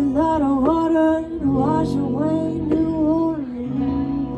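An electric guitar plays a lead line with notes bent up and down, over a strummed acoustic guitar holding the chords.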